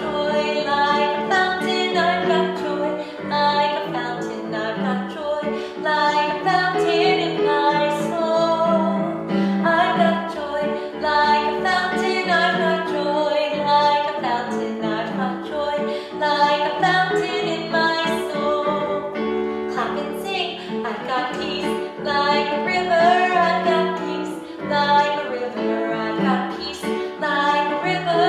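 A woman singing a melody with her own accompaniment on a Yamaha electronic keyboard.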